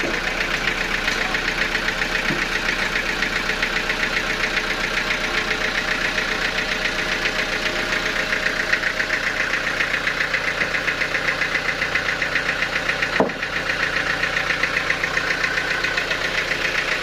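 Sawmill machinery running steadily with a fast, even pulsing, and a single sharp knock about thirteen seconds in.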